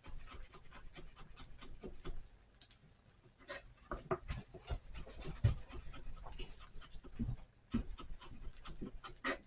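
Knife chopping red onion finely on a cutting board: quick, irregular taps of the blade on the board, several a second.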